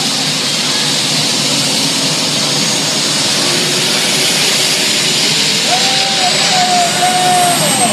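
Triple-jet-engine pulling tractor's turbines running: a loud, steady jet roar and hiss that grows stronger in its high end over the last few seconds.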